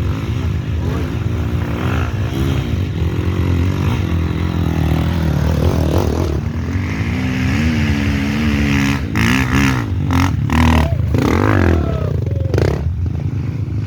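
Dirt bike engine revving up and down under load, with a long rising rev in the middle, as on a steep off-road climb. Several sharp knocks and clatter come in the later seconds.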